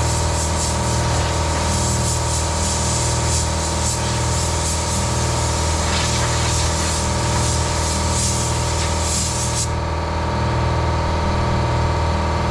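Electric air compressor running steadily, with the hiss of compressed air blowing sanding dust off the car's body.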